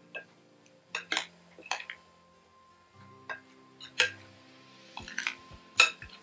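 Metal serving spoons clinking and scraping against a glass mixing bowl as a minced beef and herb salad is tossed: sharp, irregular clinks, several a few seconds apart.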